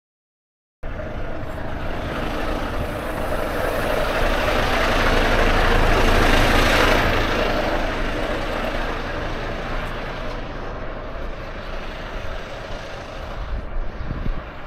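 Semi-trailer truck driving slowly past close by: engine rumble and tyre noise that starts suddenly, swells to a peak about six seconds in, then fades.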